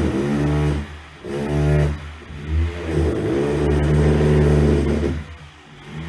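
Electric drill motor spinning up and down under the trigger: a few short bursts, then a longer steady run of about two seconds, then a drop and a fresh spin-up near the end.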